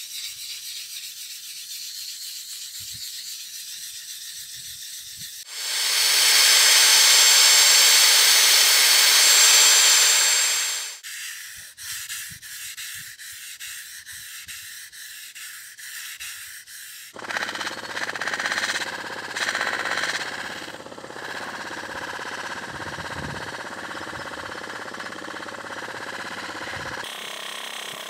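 A cloth pad rubbing a forged steel chisel blade in hand polishing, a steady hissing rub. It turns much louder for about five seconds in the middle. In the last ten seconds a different, fuller steady noise takes over.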